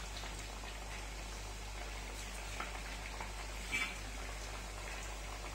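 Rice-flour thattu vadai discs deep-frying in hot oil in a kadai: a steady bubbling sizzle with small crackles, and one louder crackle about two-thirds of the way through.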